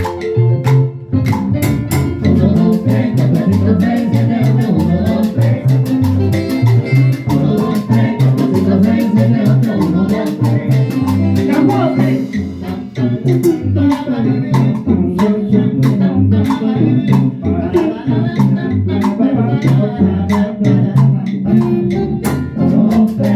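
Dance band playing a salsa-style Venezuelan tropical dance tune, with a repeating bass line under steady percussion.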